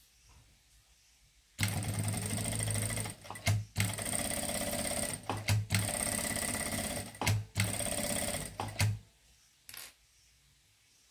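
A sewing machine runs as it stitches a fabric band onto a towel. It starts about a second and a half in and runs in stretches of one to two seconds, stopping and restarting several times until about nine seconds in. A brief single knock follows near the end.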